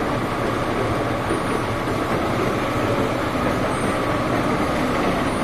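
Metal lathe running, spinning a DC motor rotor while it is turned down: a steady machine noise with a faint constant high whine.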